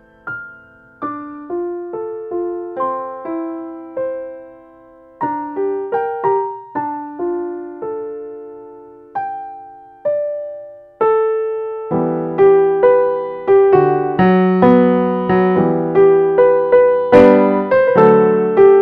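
Solo piano playing a light melody of separate, decaying notes. About twelve seconds in it turns fuller and louder, with bass notes and chords under the melody.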